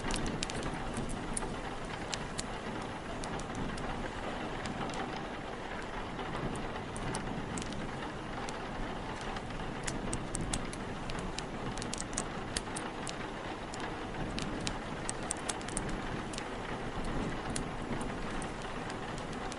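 Steady heavy rain mixed with a log fire crackling, giving many sharp pops and snaps scattered over the rain, with small clusters of them.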